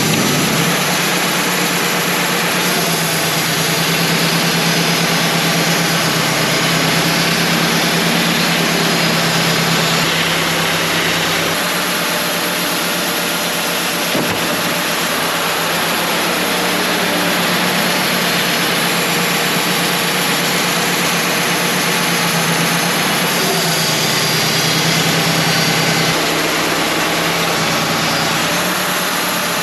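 Wood-Mizer LT35 portable band sawmill running under load, its band blade sawing through a black oak log with a steady hiss over the engine's hum. The hum shifts a few times during the cut.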